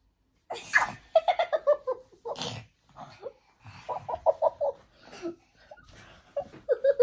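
Young children giggling and making playful vocal noises, in short runs of quick repeated ha-ha-like pulses with brief pauses between.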